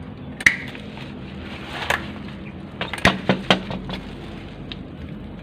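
Banyan roots being cut by hand with a blade, giving a few sharp snaps and cracks. One comes about half a second in, another near two seconds, and a quick run of four or five comes about three seconds in.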